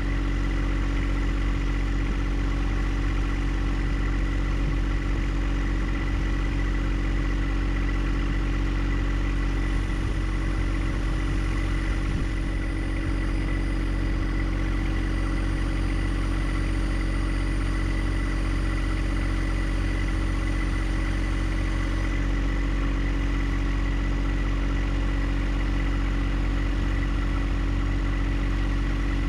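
John Deere 1025R compact tractor's three-cylinder diesel engine running at a steady speed.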